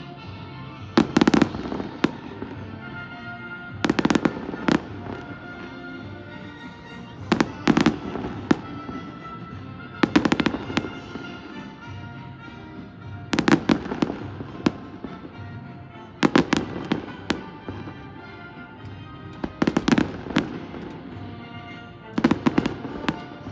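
Aerial fireworks bursting: a cluster of sharp bangs and crackles about every three seconds, eight times, over music playing steadily.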